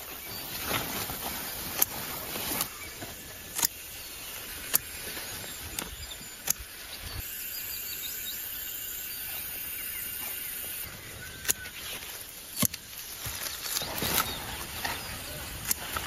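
Scissors snipping tender pumpkin vine tips, a sharp snip roughly every second amid rustling leaves. For a few seconds in the middle there are no snips, only a steady outdoor hiss.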